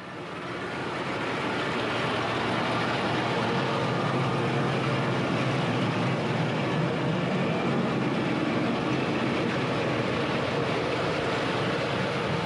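Farm tractor and potato-harvesting machinery running steadily: an even rushing noise with a low rumble, fading in over the first couple of seconds.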